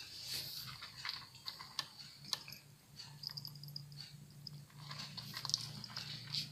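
Cat eating dry kibble from a plastic bowl: irregular crunching and clicking as it chews, with a steady low hum underneath from about halfway through.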